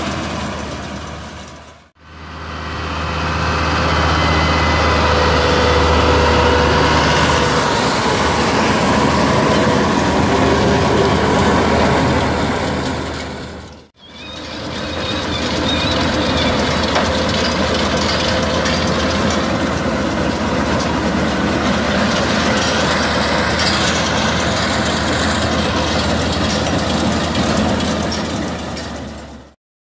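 Same Tiger 100 tractor's five-cylinder diesel, fitted with an aftermarket turbo, running steadily under load as it pulls a Feraboli Extreme 265 round baler through straw, the baler's machinery running behind it. The sound dips out briefly twice, about 2 and 14 seconds in.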